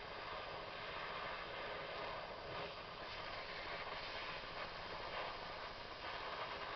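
Steady hissing rush of a torch flame heating a fouled lawn-tractor spark plug to clean it.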